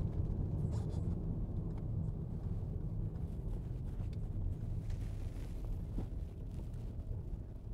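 A passenger van driving past on a country road, heard as a steady low rumble mixed with wind on the microphone, growing a little fainter near the end as it moves away.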